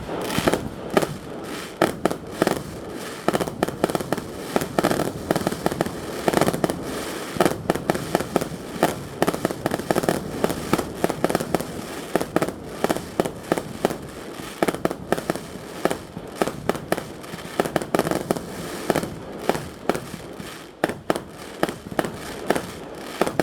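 Aerial fireworks going off in a dense barrage: sharp bangs and crackles several times a second, without a break.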